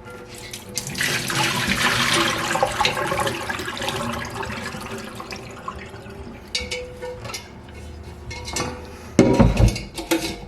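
Water running from a tap into a sink as a cast iron kettle is rinsed out. It is loudest for the first few seconds, then eases off, with a few heavy knocks near the end.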